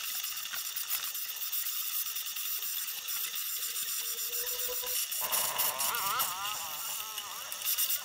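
Wire cup brush spinning in a drill press, scrubbing the metal of a rice cooker pan with a steady hiss. About five seconds in, a lower, wavering whine joins in as the piece is pressed harder and turned against the brush.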